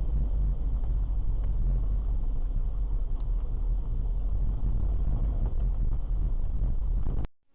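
Steady low rumble of a car driving on the road, engine and tyre noise as picked up by a dashcam inside the cabin. It cuts off abruptly near the end.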